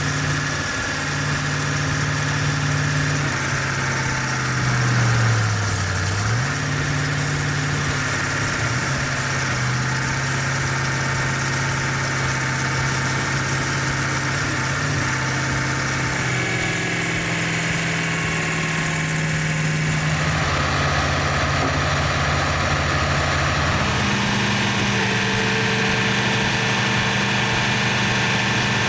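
Engine running steadily, its pitch shifting a few times through the stretch.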